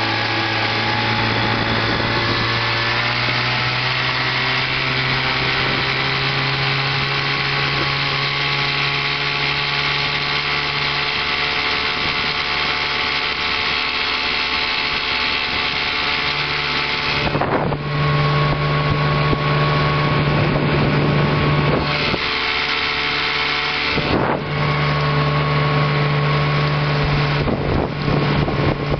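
1958 Evinrude Sportwin 10 hp two-cylinder two-stroke outboard running steadily, pushing the boat along. The engine note climbs a little in the first few seconds, and the sound gets louder after about 17 seconds.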